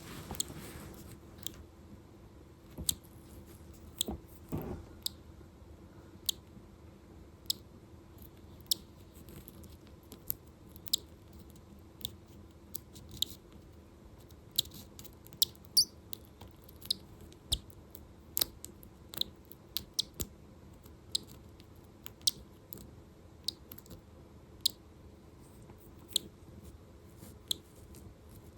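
Eggshell being picked and cracked away by hand, in sharp, irregular little clicks and crunches about one or two a second, from a cockatiel egg whose dried-out membrane keeps the chick from hatching on its own.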